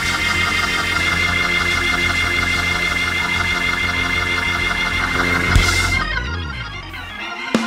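Organ playing loud held chords, with one sharp drum hit about five and a half seconds in, after which the organ runs downward and briefly drops in loudness.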